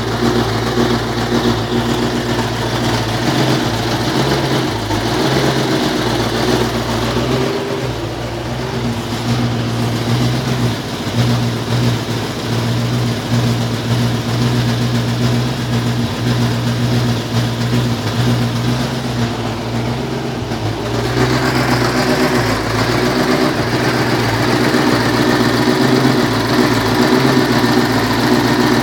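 Twin-turbo V8 of a kit car idling steadily on a Megasquirt MS2 engine management unit, running very rich on a borrowed base tune. About two-thirds of the way through, the sound gets fuller and a little louder.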